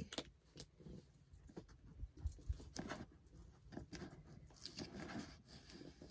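Faint scattered scratching, tapping and scraping of fingers on a cardboard box as it is being opened.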